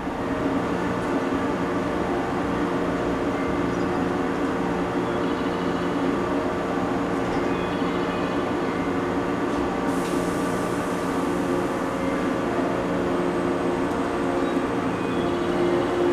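JNR 475 series electric multiple unit standing at the platform, its onboard machinery giving a steady multi-toned hum. About ten seconds in, a sudden hiss starts and fades over a few seconds.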